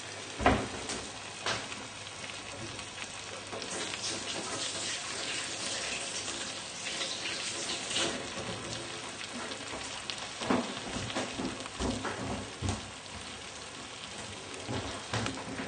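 Frying pan of salmon in mustard sauce sizzling faintly on a low heat, with a few light knocks and clicks scattered through.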